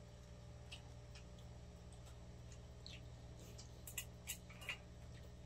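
Light clicks and taps of chopsticks and spoons against bowls and pots during a meal, with a few sharper clicks about four seconds in, over a low steady hum.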